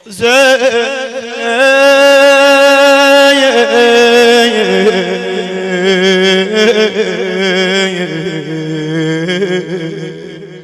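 Male voice singing a lament in long, drawn-out melismatic notes with a wavering vibrato. The pitch steps down partway through, over a steady low drone.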